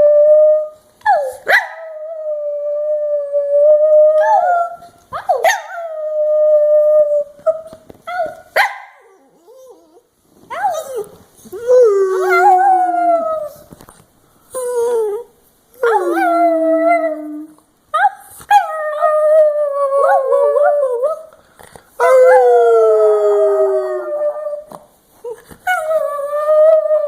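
A dog howling: a string of long howls held at one pitch, several of them sliding down in pitch at the end, with short breaks between.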